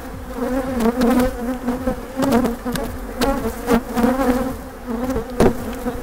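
Many honeybees buzzing around an open hive: a steady, dense hum of wingbeats. A few sharp knocks sound over it, the loudest about five and a half seconds in.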